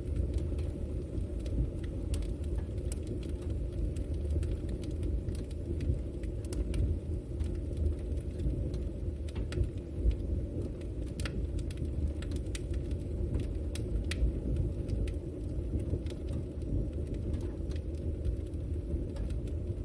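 Wood campfire burning, with irregular sharp crackles and pops over a steady low rumble.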